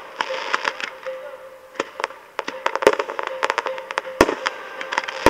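Aerial fireworks display: a rapid, uneven string of sharp pops and crackles from bursting shells, with two heavier booms about three and four seconds in.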